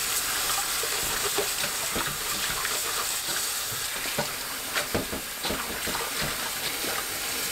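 Tap water streaming into a stainless steel bowl of water while hands swish and rub green onions in it, with irregular splashes over the steady running water.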